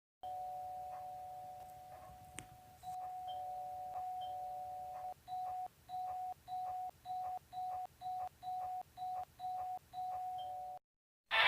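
Two-tone electronic doorbell chime. It rings twice with long held notes, then about two seconds later is rung over and over in quick short presses, roughly two a second, about ten times, as if someone is ringing impatiently.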